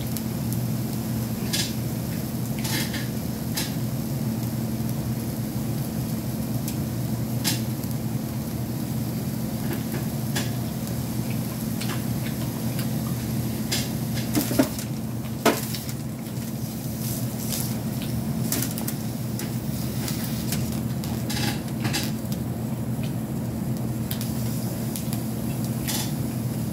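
A fork clicks and scrapes now and then against a plate and crab legs while someone eats. Under it runs a steady electric hum, from the hot plate warming the food.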